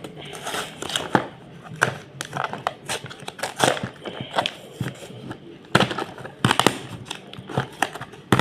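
Toy blind-box packaging being handled and opened by hand: irregular clicks, crinkles and rustles of cardboard and plastic wrapping, with a few sharper snaps.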